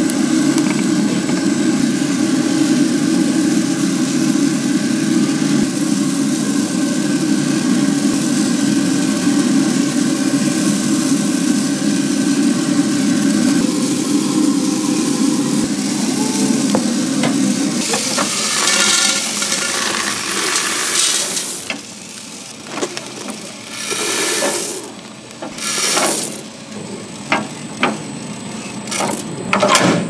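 Direct-fire coffee roasting rig running with a steady, loud hum that stops about 18 seconds in. Several short rushing, rattling bursts follow.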